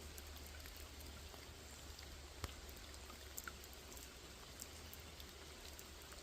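Light rain falling on a small lake, a steady soft wash with single drops ticking here and there, one louder about two and a half seconds in. A low steady hum sits underneath.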